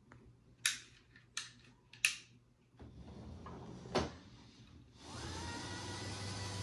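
A few sharp clicks, then, about five seconds in, a small electric motor in a gauge 1 model locomotive's motorized track chassis starts up and runs with a steady whine and hum.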